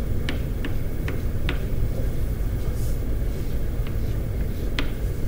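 Chalk on a blackboard: about six short taps and strokes as letters are written and underlined, over a steady low rumble.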